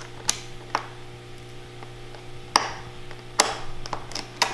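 About five sharp, separate clicks and taps from a screwdriver and small parts being handled against the opened iMac, over a steady low hum.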